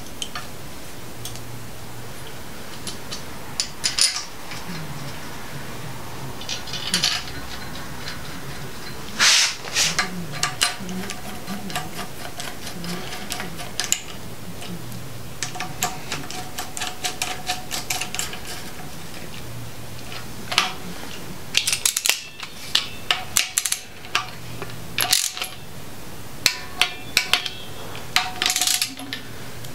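Metal hand tools on an engine: a socket ratchet clicking and tools clinking against metal in scattered short bursts, over a steady low hum.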